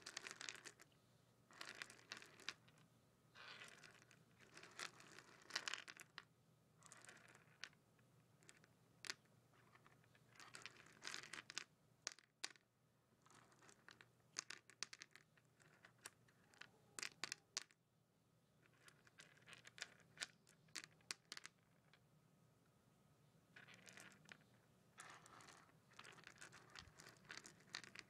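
Fingers stirring through a pile of Mike and Ike Italian Ice chewy candies on a tabletop, the candies clicking and rustling against each other and the surface. The sound comes in faint bursts with short pauses between.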